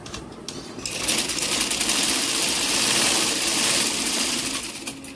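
Domestic sewing machine stitching a seam in cotton fabric: a soft start, then the needle runs fast from about a second in and slows to a stop near the end.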